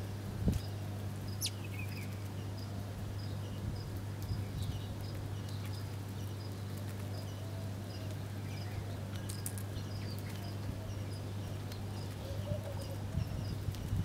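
House sparrows chirping: short high chirps repeating about twice a second, with scattered other chirps and one quick falling call about a second and a half in, over a steady low hum.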